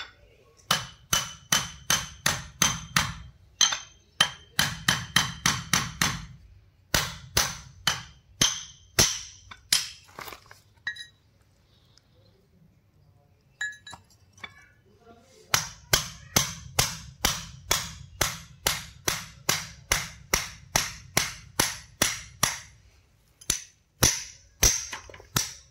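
Hammer blows on a steel chisel held against a combine harvester cutter motor's flange, about three a second, each with a metallic ring. They come in runs, with a pause of about four seconds near the middle.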